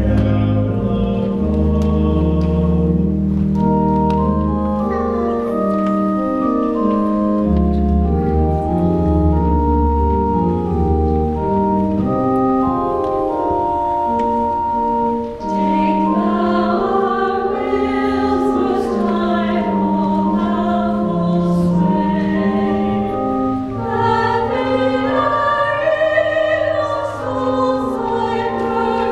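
Church choir singing with organ accompaniment: long held chords over deep bass notes at first, with the voices coming in fuller from about halfway.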